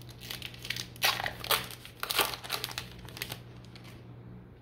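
Crinkling of a baseball card pack's wrapper as it is torn open and handled, in a run of sharp crackles that are loudest about one and two seconds in and die down after about three seconds.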